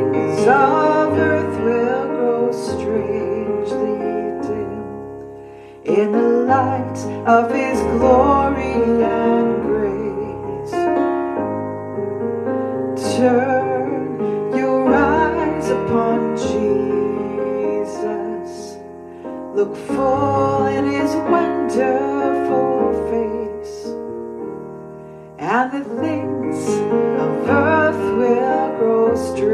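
Roland digital piano playing slow sustained worship chords, with a woman singing softly over them; fresh chords are struck about six seconds in and again near the end.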